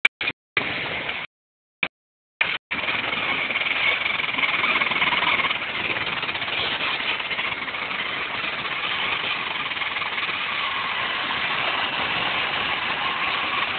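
Oxyhydrogen (HHO) torch flame burning with a steady hiss, after the sound cuts out several times in the first three seconds.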